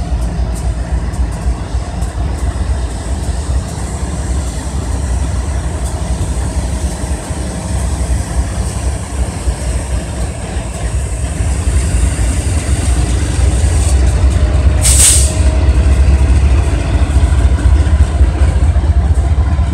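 BNSF diesel freight locomotives running past with a heavy low rumble and a faint steady hum, getting louder about two-thirds of the way in as the engines draw level. A brief high hiss cuts through about fifteen seconds in.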